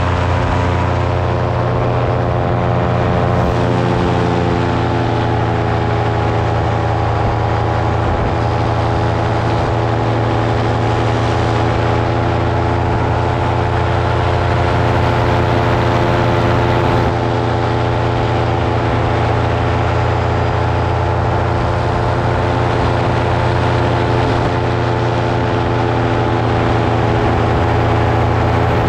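Multirotor drone's motors and propellers humming steadily at one pitch, a strong low hum with many evenly spaced overtones above it.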